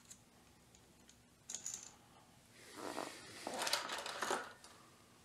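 Small metal clutch hardware (spring bolts, springs and keeper washers) clinking and rattling as it is picked up and handled, for about two seconds in the second half. It follows a single light click about a second and a half in.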